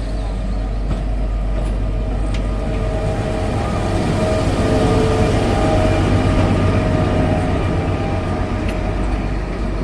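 Shimla narrow-gauge toy train running: a steady rumble of the carriage with a faint engine hum, swelling slightly midway.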